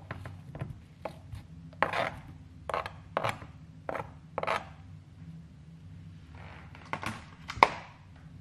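Knife blade scraping sliced onion off a plastic cutting board into a frying pan: about eight short scrapes in the first four and a half seconds, then a sharp knock near the end.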